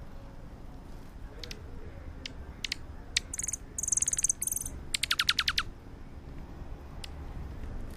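Small birds calling: scattered short chirps, then a cluster of very high, thin notes around the middle, then a quick run of about eight notes that each sweep downward.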